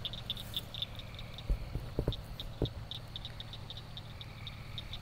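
Crickets chirping, a steady run of short high chirps several times a second, over a low steady hum, with a few faint knocks around the middle.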